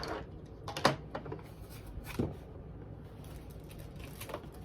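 Small items being handled and set into a shoebox: a few light clicks and taps about a second in, a duller knock about two seconds in, and another click near the end.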